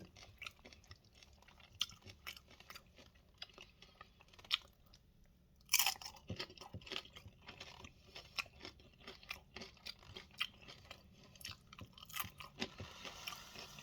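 A person crunching and chewing microwave nachos: tortilla chips topped with melted cheddar and salsa. Irregular crisp crunches, with a louder crunch about six seconds in.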